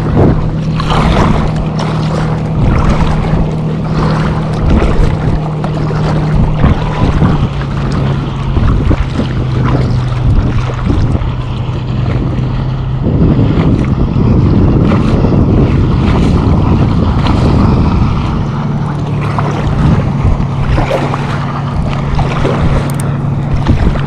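Water splashing and lapping against an inflatable kayak, with wind buffeting the microphone. A steady low hum runs underneath and changes pitch briefly about halfway through.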